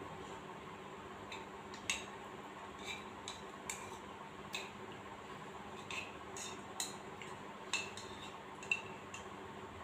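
Chopsticks clinking and tapping against a ceramic bowl while noodles are eaten: light, irregular clicks, roughly one a second.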